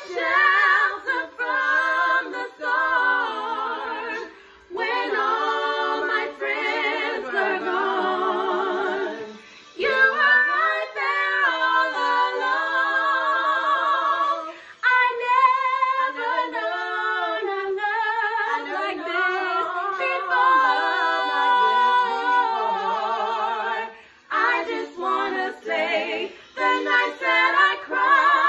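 Three women singing a cappella in harmony, with vibrato on the held notes, in long phrases broken by short pauses for breath.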